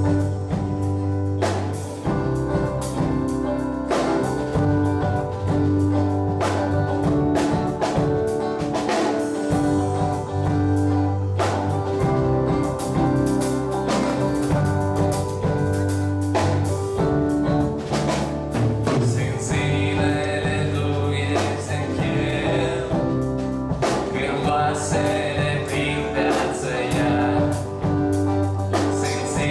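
Live Christian worship band playing a song: drums, guitars and keyboard under several singers. The singing grows much fuller about two-thirds of the way through.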